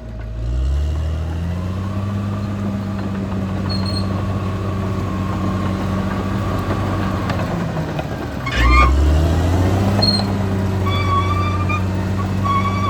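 Caterpillar D6R XL bulldozer's diesel engine rising in revs over the first couple of seconds, then running steadily under load. About eight and a half seconds in there is a sudden clank with a surge in the low engine note.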